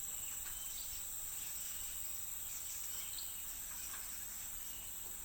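Tropical rainforest insects droning steadily at a high pitch, with a few faint short chirps now and then.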